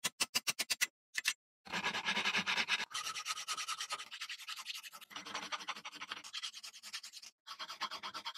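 About eight quick sharp metal knocks in the first second, from a hammer striking a rusty ball peen hammer head held in a steel vise, then one more knock. After that comes a rapid, continuous scraping on the rusty steel head as it is worked on in the vise, pausing briefly a few times.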